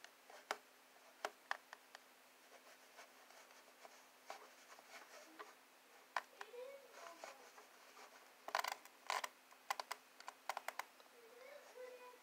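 Scattered light clicks and taps of a laptop's touchpad and keys, sparse at first and bunched in a quick run about eight to eleven seconds in. Twice there is a faint short pitched sound that rises and falls.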